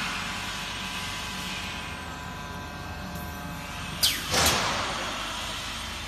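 Pellet packing machine running with a steady hum and faint whine. About four seconds in come two sharp bursts of air hiss in quick succession, typical of its pneumatic valves venting.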